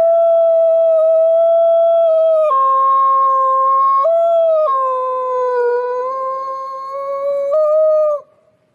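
Wolf howling: one long, clear howl held at a steady pitch that drops abruptly, climbs back, drops again and rises once more before breaking off near the end.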